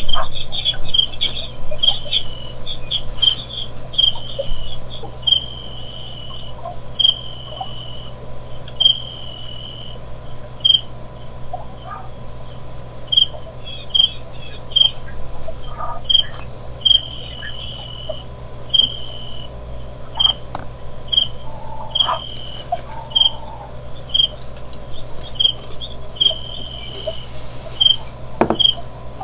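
A bird calling in the background: an irregular series of high whistled notes on one pitch, some short and some drawn out, about one a second, over a low steady hum.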